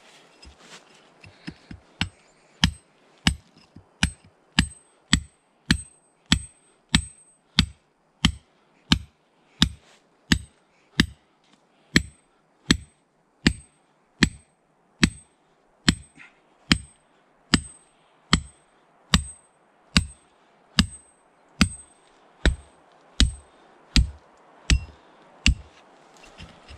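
Metal hand tool striking hard poured Khorasan lime mortar again and again, about two blows a second, each with a short metallic ring. The blows start faint and stop shortly before the end.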